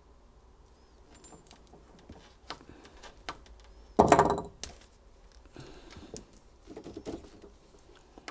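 Hands working with a coaxial antenna cable and small connector parts: scattered light clicks and knocks, with one louder clatter about four seconds in.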